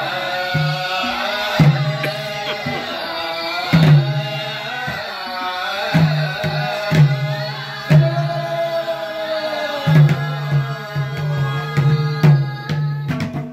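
A group singing a song accompanied by madal, Nepali two-headed barrel hand drums, with repeated deep drum strokes under the voices.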